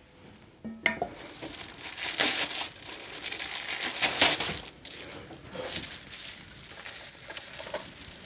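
Stainless steel dog bowls being handled on a kitchen counter while dog food is dished out: irregular clinks and scraping, starting with a sharp click about a second in.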